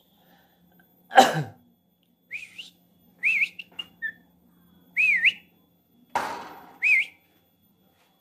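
A pet Javan myna mimicking a human cough about a second in, then a run of short whistled notes that rise and fall, with another rasping, cough-like burst a little after six seconds.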